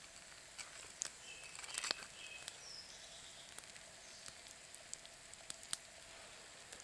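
Quiet woodland background with a few short bird chirps about one and a half to two and a half seconds in, and scattered light clicks and taps as crispy fried mushroom pieces are set on a bread roll with a knife.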